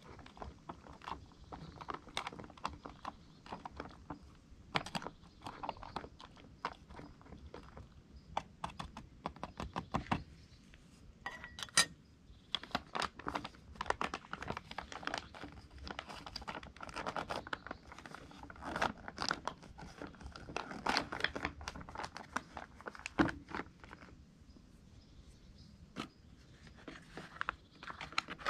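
Crinkling and rustling of paper and plastic food pouches being handled and opened, with scattered small clicks, scrapes and clinks from an aluminium camping pot and utensils.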